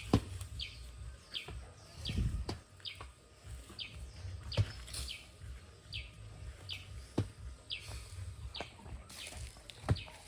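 A bird calling over and over: one short, high, falling chirp repeated steadily about every two-thirds of a second. A few sharp knocks come in between, the loudest about a tenth of a second in and near the end.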